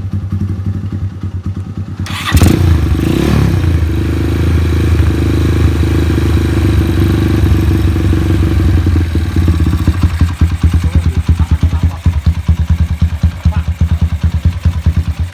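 Honda Tiger's single-cylinder four-stroke engine, bored up to 68 mm with a 68.2 mm stroke, idling, then revved up sharply about two seconds in and held at higher revs. About ten seconds in it drops back to idle, with separate firing pulses, before cutting off suddenly at the end.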